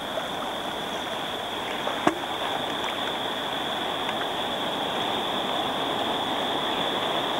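River water rushing steadily past a raft, slowly growing louder, with a steady high-pitched hum over it and a single click about two seconds in.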